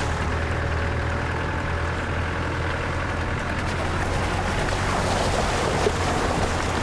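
Steady engine drone heard from inside a 4x4 driving slowly along a stony unsealed lane, with a few small knocks and rattles from the rough track.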